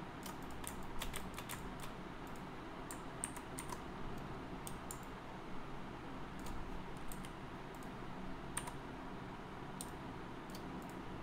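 Irregular clicks of a computer mouse and keyboard keys, coming in small clusters, over a steady low room hum.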